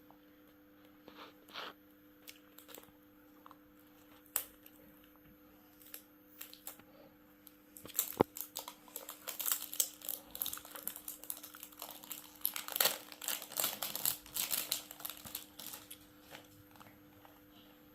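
Candy wrapper being unwrapped, crinkling and tearing. A few light clicks come first, then dense crinkling from about halfway through.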